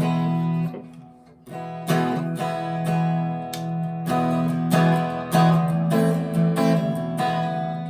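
Harley Benton TE-90 FLT electric guitar played through an amp on its neck pickup, strummed chords ringing one after another with a brief lull about a second in. The strings sit well above the pickups.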